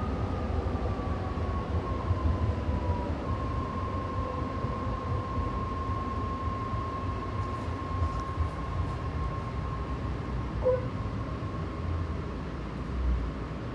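BART Fleet of the Future train at a station: a steady low rumble under an electric whine that falls slightly in pitch over the first three seconds, then holds at one steady pitch until near the end.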